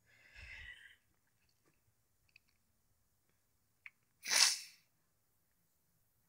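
A single short sneeze about four seconds in, loud and sudden, after a soft breathy hiss near the start.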